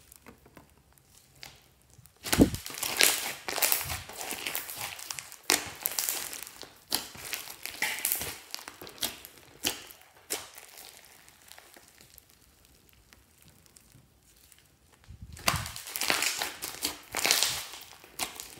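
Hands squishing and kneading a mound of glossy slime packed with foam beads: wet sticky squishing with many small sharp crackles. It comes in two spells, starting about two seconds in, with a lull of a few seconds between them.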